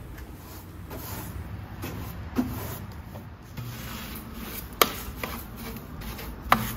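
Plastic-bristle broom sweeping light snow off concrete and wooden stair treads: repeated brushing strokes, with three sharp knocks, about two and a half, five and six and a half seconds in, as the broom strikes the steps.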